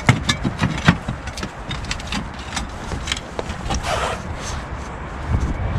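Footsteps and scuffs of people clambering over clay roof tiles: a quick run of clicks and knocks, with a longer scrape about four seconds in, over a steady low rumble.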